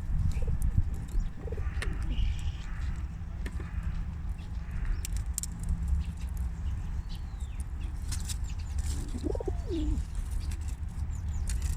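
Baby squirrel sneezing: small, sharp sneezes about once a second over a steady low rumble, with one short rising-and-falling call about nine and a half seconds in.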